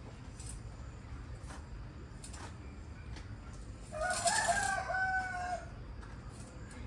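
A rooster crows once, about four seconds in: one call of about a second and a half that ends on a held note. Faint clicks sound over a low steady background rumble.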